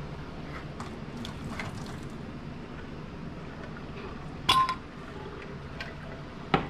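Metal canning lids and screw bands clinking as they are picked up beside glass canning jars: a few light clicks, then a sharp clink with a short ring about four and a half seconds in, and another sharp click near the end.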